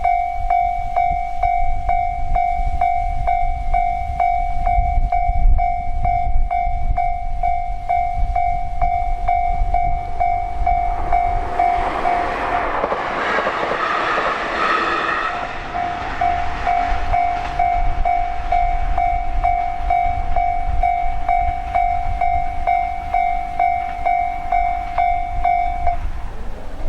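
Railway level-crossing bell ringing steadily, one high tone struck about twice a second. A train passes about halfway through, its rush of noise covering the bell for a few seconds. The bell stops about a second before the end.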